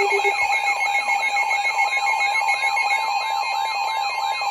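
Several electronic weather-alert alarms sound together, heralding a new severe thunderstorm warning. A siren-like tone sweeps up and down about three times a second over a steady tone and a high warble. A pulsing lower beep stops just after the start.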